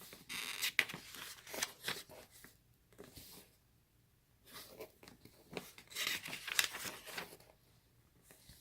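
Packaging being handled, rustling and crinkling in irregular bursts with short quiet gaps.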